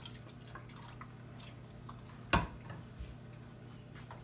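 Small drips and splashes as sauce is shaken from a bottle into thin gravy in an enameled cast-iron pot, then a wooden spoon stirring the liquid. A single sharp knock comes a little over two seconds in.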